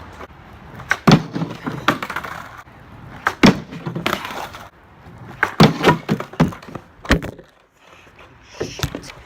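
Skateboard clattering: a series of sharp cracks and slaps as the board pops and hits the ground, with short stretches of wheels rolling in between, typical of repeated trick attempts.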